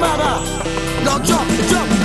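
Soca music playing: an up-tempo beat with short swooping notes over it.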